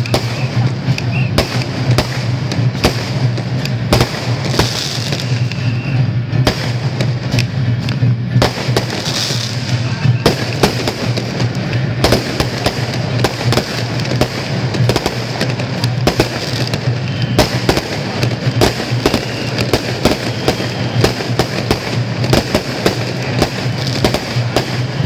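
Strings of firecrackers going off continuously, a dense, irregular run of sharp pops, with a steady low drone underneath.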